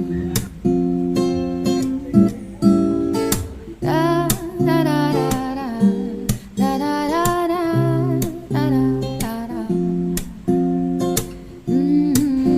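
Background music: acoustic guitar strumming and picking chords, with a singing voice in places.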